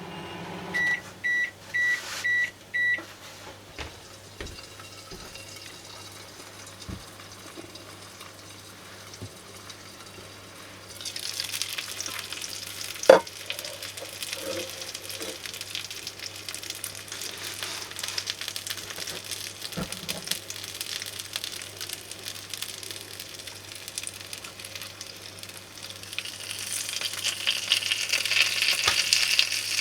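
Microwave oven beeping five times to signal the end of cooking, then salted mackerel sizzling in a hot Range Cook microwave grill pan, the sizzle growing louder near the end. A single sharp click partway through.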